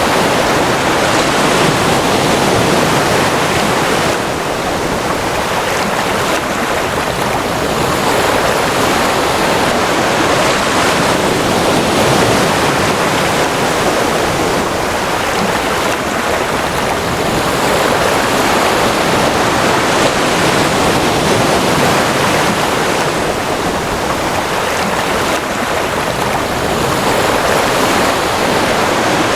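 Ocean surf: a steady wash of waves breaking, swelling and easing gently every several seconds.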